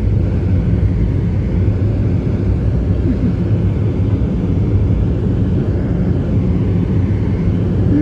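Steady road and engine noise inside a moving car's cabin: a low, even rumble.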